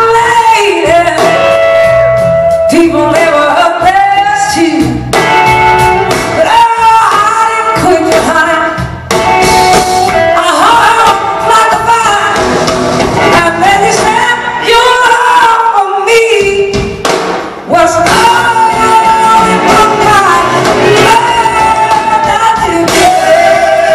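Live band performance: a woman sings lead over guitar and drums, the full band playing continuously at concert volume.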